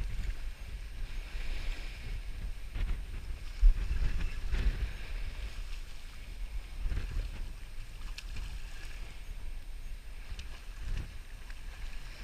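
Wind buffeting the microphone in uneven gusts over the steady hiss of surf breaking along the beach.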